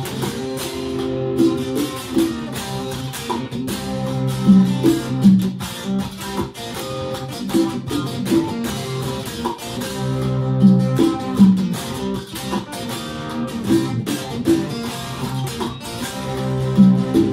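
Electric guitar playing an instrumental passage of plucked notes, with a phrase that repeats every six or seven seconds.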